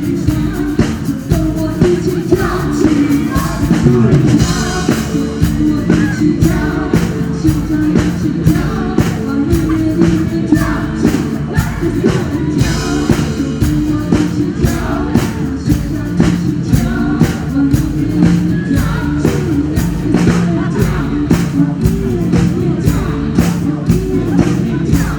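A live rock band playing a song with a lead vocal over a steady drum beat and bass.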